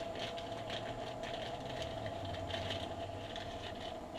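Plastic parts bag crinkling and rustling in irregular bursts as a replacement part is taken out of it, over a steady background hum.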